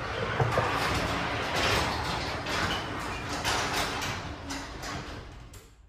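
Motorized garage door closing: a steady mechanical rumble and rattle of the door running along its tracks, fading away near the end as it comes down.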